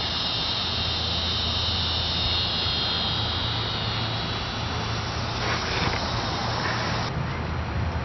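Steady outdoor background hum, low and even, with a high steady buzzing over it that cuts off about seven seconds in.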